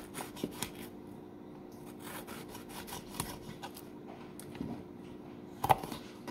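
Kitchen knife slicing a red bell pepper into strips on a wooden cutting board: scraping cuts with light taps of the blade on the board, the sharpest knock a little before the end. A faint steady hum runs underneath.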